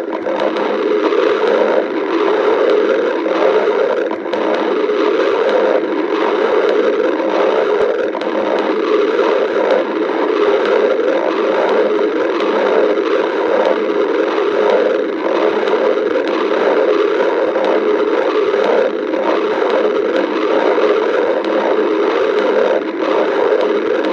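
A person's stomach growling: an unbroken run of gurgles and rumbles that never pauses.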